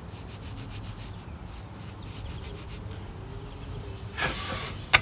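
Steady rubbing and rustling, with a louder brief scrape about four seconds in and a sharp knock at the very end.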